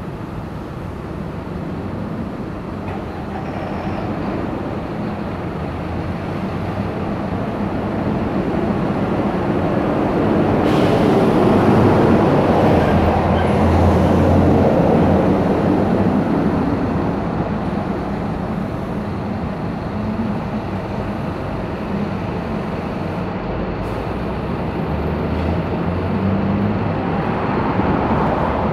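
Street traffic: a heavy vehicle's engine running, with its noise swelling to a peak about halfway through, then easing off.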